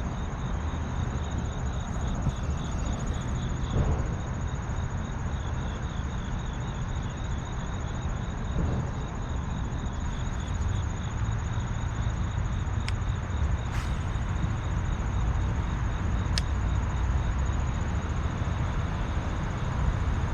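Steady low rumble of outdoor background noise with insects trilling in a high, steady pulse over it, and a few faint clicks.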